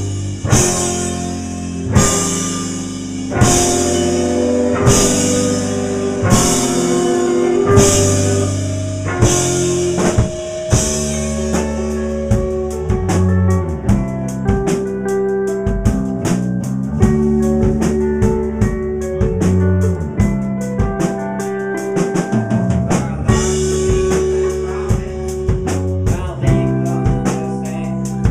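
Live rock band playing: electric guitar over a drum kit. Crash cymbal hits come about every second and a half for the first ten seconds or so, then the drums change to fast, even strokes, and the cymbal crashes return near the end.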